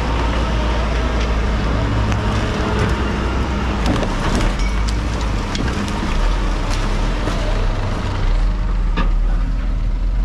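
A heavy vehicle engine running steadily, with scattered metallic clanks and rattles over it, the clearest about halfway through and near the end.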